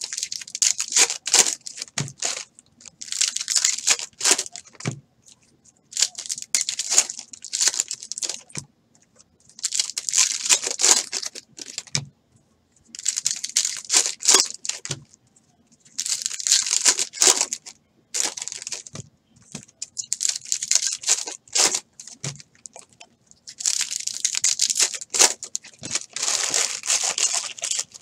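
Baseball card pack wrappers being torn open and crinkled by hand, one after another, in short bursts every two to three seconds.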